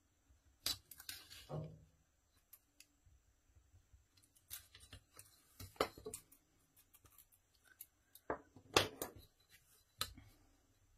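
Faint scrapes, taps and rustles of a cardstock tag being worked on a cutting mat with a pencil and ruler: marked, slid across the mat and lined up under the ruler. They come in short scattered clusters, the sharpest taps about nine seconds in.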